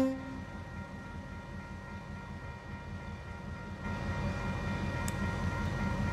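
TasRail TR-class diesel locomotives rumbling as they approach, just after a horn blast cuts off. Faint steady tones sit over the low rumble, and the sound grows louder about four seconds in as the train draws closer.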